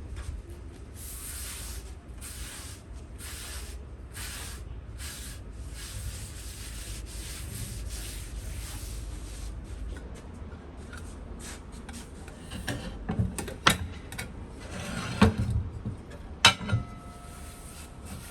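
Rhythmic rasping strokes, a little more than one a second, of something being rubbed or sanded by hand. After that come a few knocks and a sharp clink that rings briefly.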